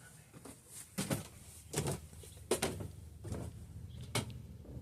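About five light knocks and clicks, roughly evenly spaced a little under a second apart, over a low background hum.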